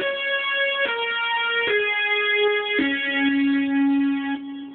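Roland JX-1 synthesizer playing a short line of single notes, about four in a row, stepping down in pitch. The last note is held about a second and a half before it fades. The keyboard is sounding normally here, without its fault.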